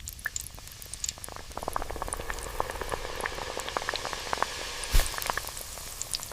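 Mandazi dough frying in hot oil: a steady sizzle full of small pops and crackles that grows denser. A sharp knock sounds about five seconds in.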